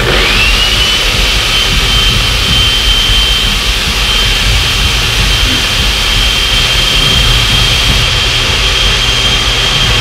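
Hamilton Beach countertop blender switching on by itself, its motor spinning up within a moment to a loud, steady high whine and running on without a break.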